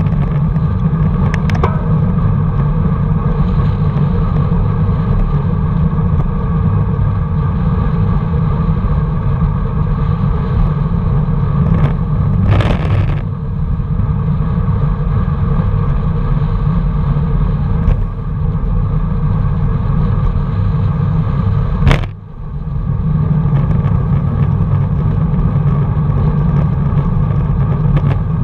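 Steady wind rush and tyre-on-tarmac noise picked up by a bicycle-mounted camera while riding, heaviest at the low end. A short hiss comes about halfway through, and a sharp knock about two-thirds in.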